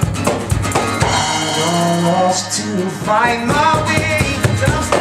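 Live acoustic band: a strummed acoustic guitar with a hand-played cajón keeping the beat, struck hard in the first second. A man's voice sings over it from about a second in.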